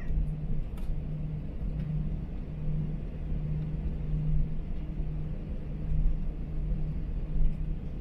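Airbus A321 cabin noise heard from a passenger seat: a steady low rumble with a steady hum underneath, and a faint click about a second in.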